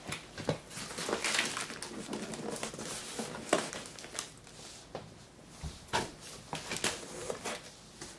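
Flaps of a cardboard shipping box being pulled open and folded back by hand: irregular rustling and scraping of cardboard.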